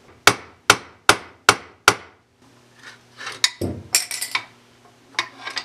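Claw hammer striking a screwdriver used as a makeshift punch, five sharp metal taps about 0.4 s apart, driving a pin out of a steel shotgun receiver. A few lighter clinks and knocks follow about halfway through.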